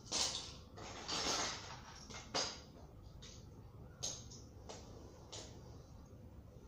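Rustling and clattering of small objects being handled and shifted on the floor, in short irregular bursts: a longer one about a second in, a sharper click a little later, and a few fainter ones after.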